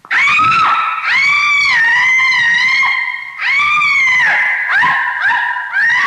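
Canine howling from a recorded sound effect, starting abruptly out of silence: long howls that swoop up and then hold steady, one after another, with a second voice overlapping near the end.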